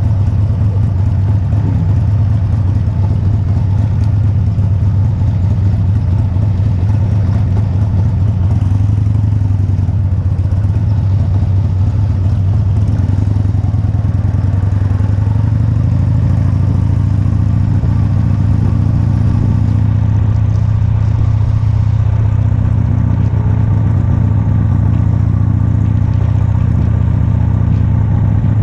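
Motorcycle engine running steadily at low road speed, its pitch rising a little about halfway through.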